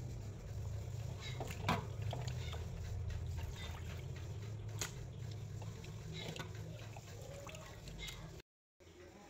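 Hands squeezing and swishing raw mutton pieces in a steel bowl of water: wet squelching and sloshing with scattered splashes and clicks, over a steady low hum. The sound drops out briefly near the end.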